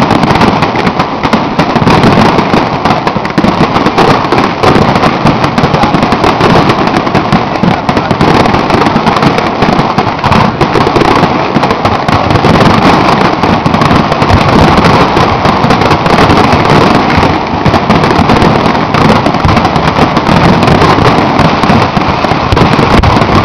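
Aerial firework shells bursting one after another in a dense, continuous barrage of overlapping bangs.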